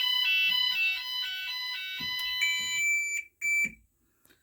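Fire alarm sounders on a Gent Vigilon system sounding together in a fast alternating tone. About three seconds in the tone cuts off, followed by one short final blast.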